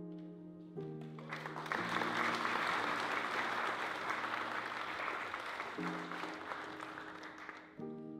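Guests applauding, starting a little over a second in and dying away near the end, over music of held chords that change every second or so.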